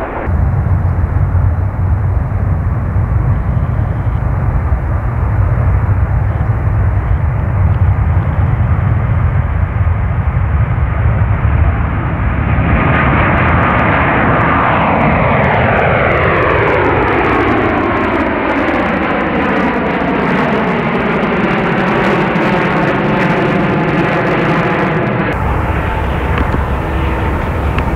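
Airbus A350's Rolls-Royce Trent XWB turbofans at take-off power: a loud, deep steady rumble, then from about halfway through a whine that slides steadily down in pitch as the climbing jet passes. Near the end it changes abruptly to a different steady engine rumble.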